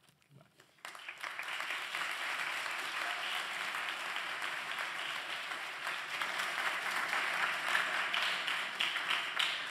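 Audience applauding, starting about a second in and continuing steadily.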